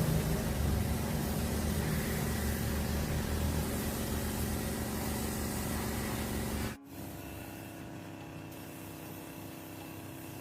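Electric air compressor running steadily, a dense mechanical noise over a low hum. About two-thirds of the way through it cuts off abruptly, leaving only a quieter steady hum.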